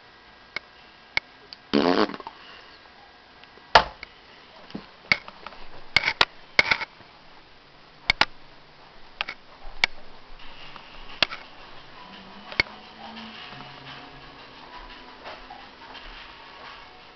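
Handling noise from a hand-held camera being carried: irregular sharp clicks and knocks, with a rustling burst about two seconds in.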